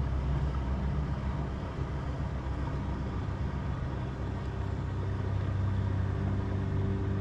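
A steady low motor hum with several held tones, and a fainter, higher held tone joining about four and a half seconds in.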